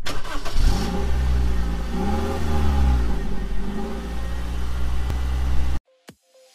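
Engine revving, its pitch rising and falling a few times over a steady low running note, then cutting off suddenly near the end.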